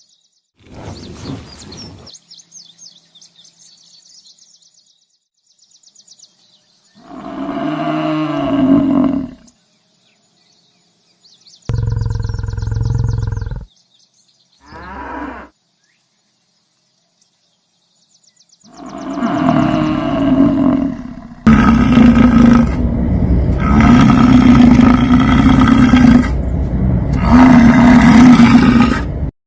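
Bison bellowing: a series of deep, pitched roaring calls, each a second or three long and separated by pauses, then several loud bellows close together over the last eight seconds.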